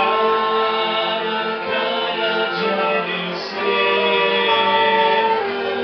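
A small wind band of clarinets, trumpet and tuba playing a slow tune in long held notes, with a group of voices singing along.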